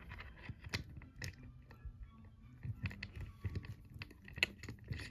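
Irregular clicks and small knocks as a dimple thumb-turn lock is handled and clamped into a vise, metal against metal.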